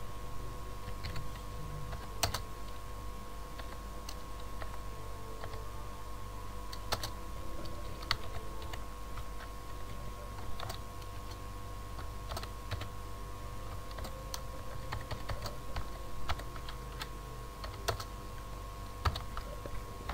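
Typing on a computer keyboard: scattered, irregular keystrokes over a steady low hum.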